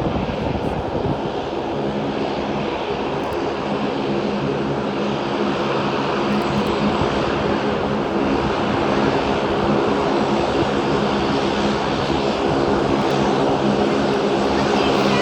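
Aircraft engines running steadily, slowly growing a little louder.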